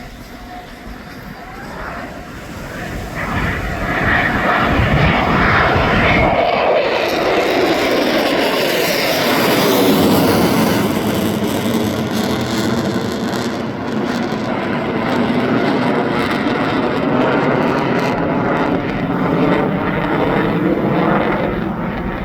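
EA-18G Growler jet flying past, its twin turbofan engines building up, then dropping in pitch as it passes, then settling into a loud, sustained jet roar. Wind buffets the microphone for the first few seconds.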